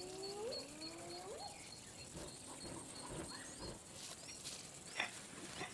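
Two faint rising whoops of spotted hyenas in the first second and a half, over a bird's high repeated chirps and a few light clicks.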